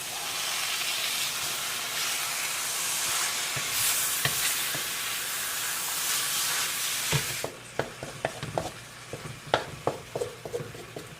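Ground beef frying in a dry pan with a steady sizzle while it is stirred; the sizzle cuts off suddenly about seven seconds in, leaving a run of sharp knocks and taps of the stirring utensil against the pan.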